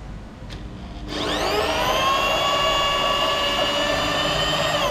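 Handheld electric drill turning a CNC router's ball screw: it spins up with a rising whine about a second in, then runs steadily, driving the steel table along its linear rails, and begins to wind down at the very end.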